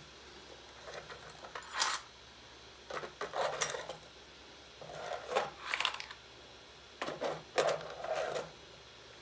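3D-printed plastic storage drawer on the side of a 3D printer being slid in and out, with small metal parts rattling and clinking inside it. The sliding and rattling comes in four short bouts about two seconds apart.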